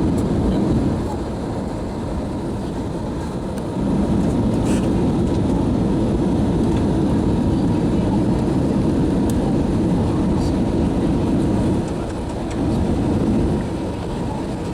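Steady rumble of an airliner's cabin noise from the engines and airflow. It drops in level about a second in, rises again a few seconds later, and dips briefly near the end.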